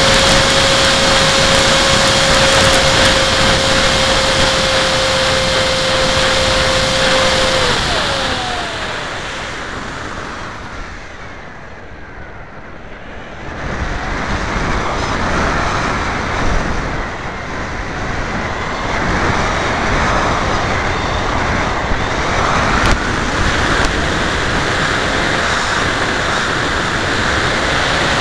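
Electric motor and propeller of a FunJet RC plane heard from a camera riding on the plane, with rushing wind over the microphone. A steady motor whine drops in pitch about eight seconds in as the throttle comes back; the sound is quietest around twelve seconds, then the wind rush grows again, and the motor whine rises once more near the end.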